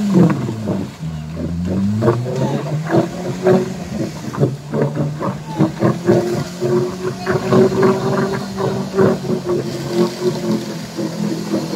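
Suzuki Jimny engine running while stuck in deep mud and water, its pitch falling and rising in the first two seconds, then holding steady. Voices are heard over it.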